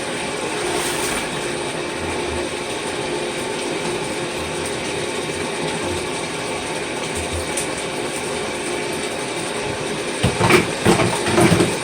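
Hard plastic parts knocking and clattering as they are handled, in a short cluster near the end that is the loudest part, over a steady background hiss.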